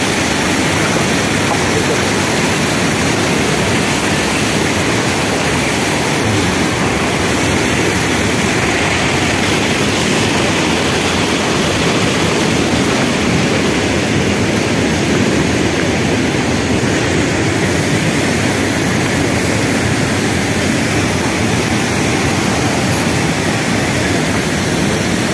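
Waterfall's falling water making a loud, steady rushing noise that never lets up.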